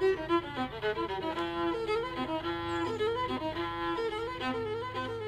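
Outro music: a fiddle tune of quick, changing notes over a steady low drone.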